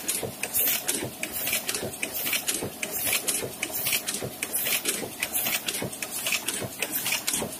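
Heidelberg GTO 52 sheet-fed offset printing press running, its feeder and gripper mechanism clattering evenly as paper sheets are fed through, with sharp mechanical ticks repeating several times a second.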